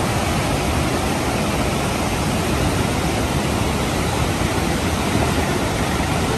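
Fast mountain river rushing over rocks: a steady, even hiss of white water.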